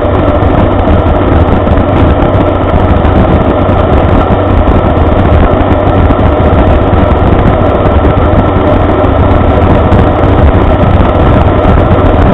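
Inverted Rotax 582 two-stroke twin engine driving a wooden three-blade propeller, running steadily and loudly as heard inside the ultralight's cockpit.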